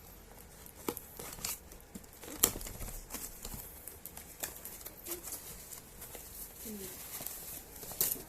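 Crinkling and rustling of something being handled, with scattered sharp clicks, the loudest about two and a half seconds in and another near the end.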